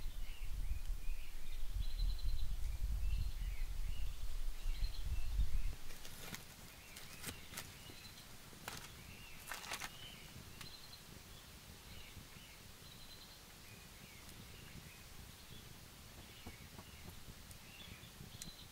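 Forest birds chirping throughout. For the first six seconds a loud low rumble lies over them and then cuts off suddenly. A few sharp snaps and knocks of sticks follow near the middle as wood is fed into a small fire.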